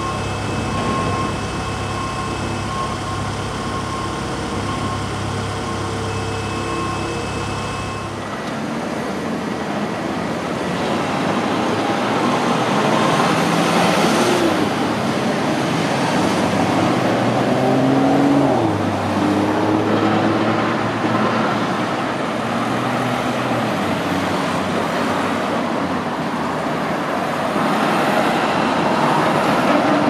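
Construction machinery at work. First a steady diesel engine hum with a constant whine. Then, after an abrupt change about 8 s in, road traffic mixed with the engines of a working excavator and dump truck, with engine notes rising and falling in the middle.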